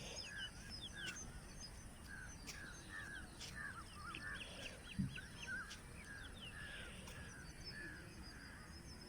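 Faint birdsong: small birds chirping with a short arching call repeated about twice a second, over light background noise, with a few faint clicks.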